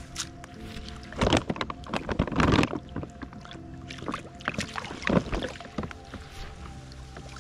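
Water splashing in a few short bursts, the longest about two seconds in, over faint steady held tones.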